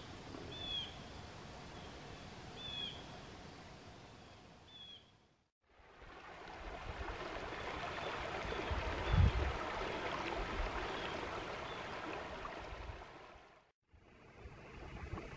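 A bird gives three short, downward-sliding chirps about two seconds apart over a faint river hiss. Then, after a moment of silence, the Clarion River rushes steadily over a shallow riffle, with a brief low rumble partway through.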